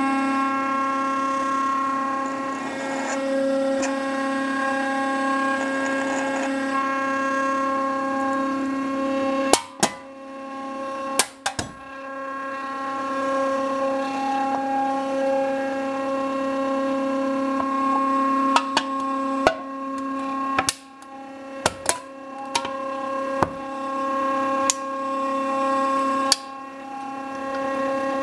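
The 420 oz-in stepper motors of a DIY CNC machine's Z axis give a steady whine as they drive the spindle down onto an aluminium Coke can. Sharp pops and crackles come as the can's wall buckles and folds, a few about ten seconds in and more often in the second half, the whine dipping briefly at some of them.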